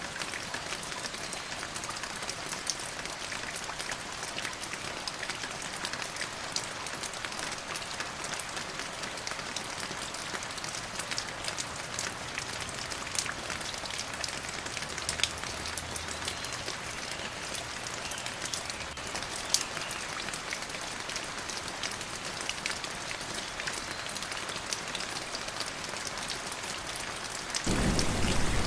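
Steady rainfall with many separate drops ticking. Near the end it suddenly grows louder and fuller.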